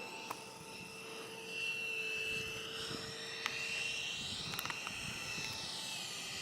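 Electric ducted-fan RC jet whining in flight, its pitch shifting as it passes by around the middle. A few short sharp clicks occur.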